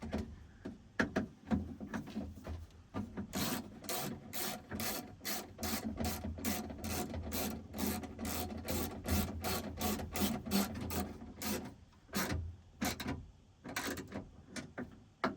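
Hand ratchet with an extension being worked back and forth to tighten a screw, its pawl rasping in even strokes of about three a second. The strokes start irregularly, then settle into a long steady run before stopping near the end.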